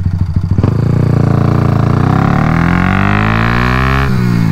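Big-bore Honda Grom's single-cylinder four-stroke engine under way. Its note rises, then sags, with a brief break about four seconds in before it picks up again.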